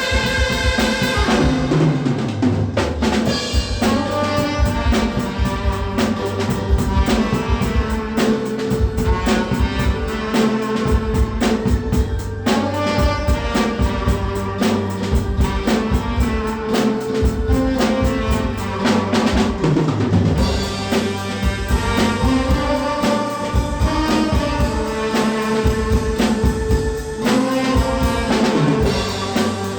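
Tenor saxophone playing a melody over a drum kit groove, a live improvised sax-and-drums jam.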